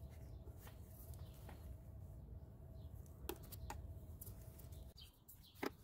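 A few sharp plastic clicks from the retaining clips of a 2010 Ford F-150's engine-bay fuse box lower cover being unhooked, the loudest near the end, over a faint low hum.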